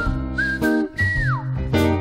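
Theme music with a whistled melody over an instrumental accompaniment with bass and a steady beat. The whistled line slides down in pitch about a second in.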